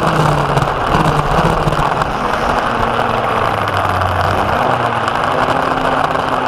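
Racing go-kart engine heard onboard at speed under a loud rush of wind noise. The engine note sinks low for a moment a little before four seconds in as the kart slows for a corner, then climbs again as it accelerates out.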